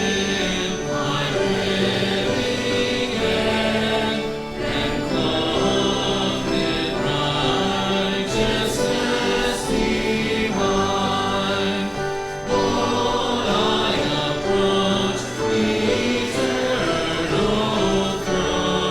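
A choir singing a hymn, with sustained notes in several parts.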